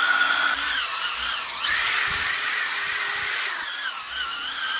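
Corded round-pad orbital sander running against a weathered log wall: a high whine over the hiss of the pad on the wood. Its pitch dips and then jumps up about a second and a half in, and falls back about three and a half seconds in.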